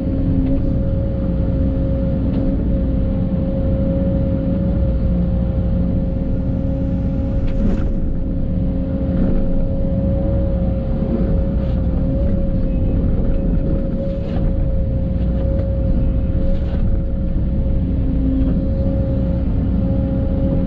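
Case CX210 excavator's diesel engine running steadily under digging work, a low rumble with a steady whine over it. A few light knocks come through during the digging.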